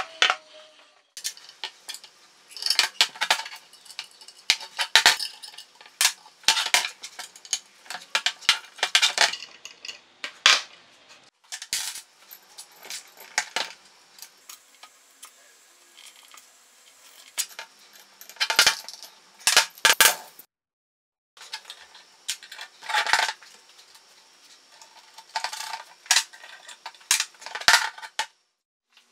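Metal parts of a stove door clinking and clattering on a table as they are handled and fitted together by hand: frame, hinges, latch, nuts and bolts knocking against each other. The clinks come in clusters, with a few short breaks.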